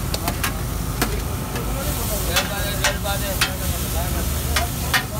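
Metal spatula clanking and scraping on a large flat iron griddle as fried fish is chopped and pushed around for katakat. The clanks come irregularly, about two a second, over a steady frying sizzle.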